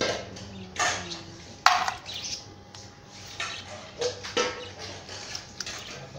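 Handling sounds of a live mud crab: a few short, sharp scrapes and knocks spaced irregularly, with a wet quality.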